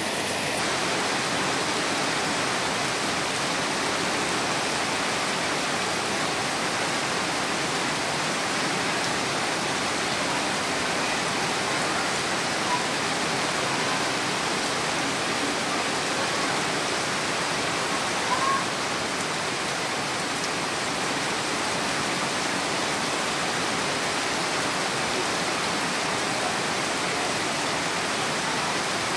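Heavy rain falling steadily, a dense even hiss of rain mixed with running runoff water.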